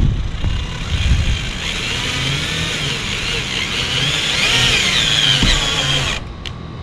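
Cordless drill running with a whine that rises and falls, pre-drilling 1/8-inch pilot holes through the fan adapter into the van's roof; it stops abruptly about six seconds in.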